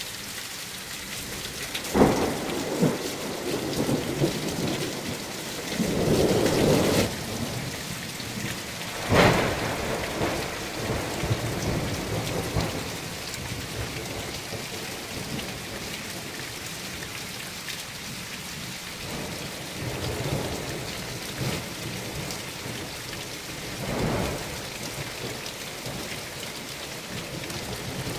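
Thunderstorm: heavy rain falling steadily, broken by several claps of thunder — a sharp crack about two seconds in, a longer rumble a few seconds later, another sharp crack near ten seconds, and a fainter clap toward the end.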